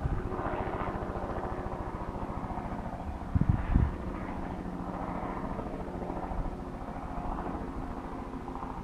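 Honeybee swarm buzzing in a steady drone, with two low thumps about three and a half seconds in.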